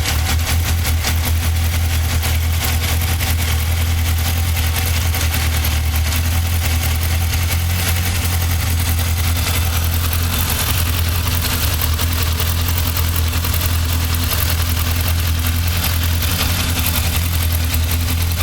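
Yamaha XJR 1200's air-cooled inline-four engine idling steadily.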